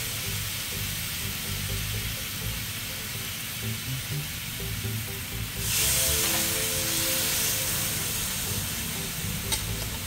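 Marinated pork belly strips sizzling on a hot ridged grill pan. About halfway through, a strip is laid with tongs on a fresh part of the pan, and the sizzle suddenly gets louder, then eases off.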